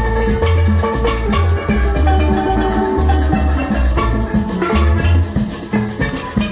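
Steel band playing live: steel pans ringing out a melody and chords over deep bass notes in a steady repeating rhythm.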